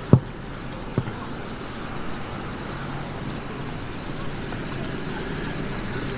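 Street traffic: cars driving by with engines running, a steady noise with a low hum that comes and goes. Two sharp knocks land about a second apart near the start, the first the loudest sound.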